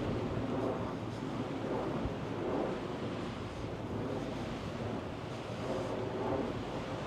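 Steady wind noise buffeting the microphone outdoors, an even rushing with no distinct events.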